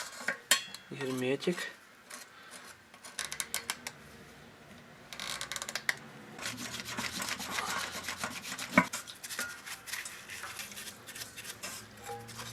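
Knife blade scraping old sealant off the mating surface of a scooter engine's crankcase half, in repeated rough strokes with clicks of the blade, and one sharp knock about nine seconds in.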